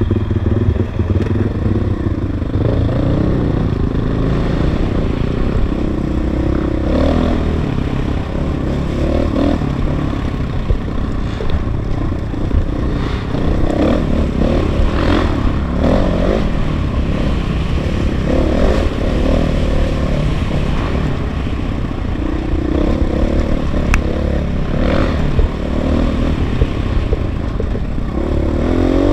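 KTM 500 EXC's single-cylinder four-stroke engine pulling along a dirt trail, the revs rising and falling again and again as the throttle is worked through the gears.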